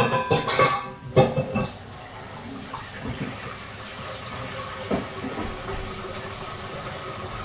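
A few quick clatters of kitchen utensils and dishes, then a kitchen tap running steadily.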